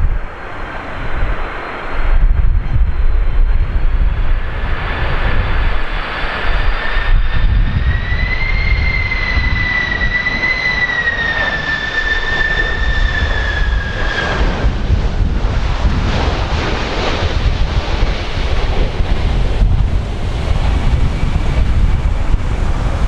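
Jet engines of a large cargo airliner on landing approach, a high whine that grows, wavers slightly in pitch and fades about fifteen seconds in. Strong wind buffets the microphone with a loud low rumble.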